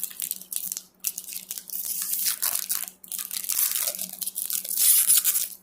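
Crinkly plastic wrapper of a pack of trading cards being torn open and crumpled by hand, in several bursts with short pauses, loudest near the end.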